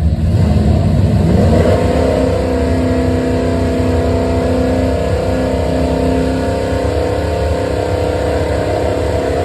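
Car engine running loudly, its pitch rising a little about two seconds in and then holding steady.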